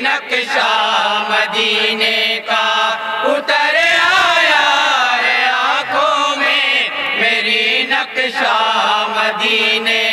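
A group of men singing an Urdu naat together in chorus, with no instruments. The notes are long and held, with slow ornamental glides up and down.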